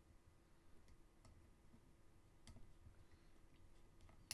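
Near silence, broken by a few faint clicks of a screwdriver and small screw being handled at the hub of a floppy disc delay's drive. The sharpest click comes near the end.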